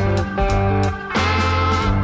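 Background music: guitar-driven blues-rock with a steady beat.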